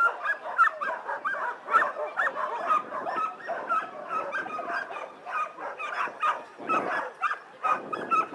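A pack of sled dogs barking and yipping together, short high-pitched calls overlapping several times a second without a break.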